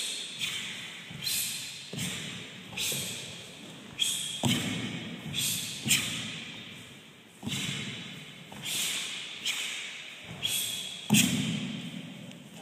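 Taekwon-Do pattern techniques performed by two people: a run of sharp thuds and snaps about once a second, from feet landing on the wooden floor, uniforms snapping and forceful exhalations, each echoing in a large hall.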